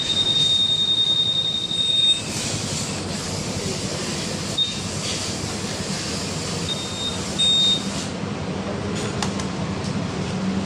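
Honda Vario 150 keyless alarm buzzer sounding a steady high-pitched tone that stops about two seconds in, then three short beeps of the same pitch: one near the middle and two close together a little later. This is the alarm responding while the re-registered keyless remote is tested.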